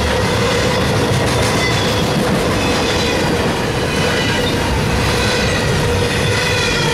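Double-stack intermodal freight train's well cars rolling past close by: a loud, steady rumble of steel wheels on rail, with thin steady high-pitched tones running over it.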